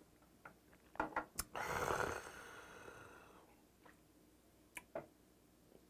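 A man swallows a shot of soju with a few small gulping clicks, then lets out a long, breathy exhale that fades away over about two seconds. Two light clicks follow near the end.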